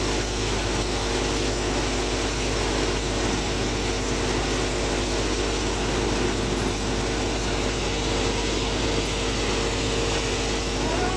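Tractor-driven grain thresher running steadily while threshing crop, giving a constant mechanical hum with an even whir.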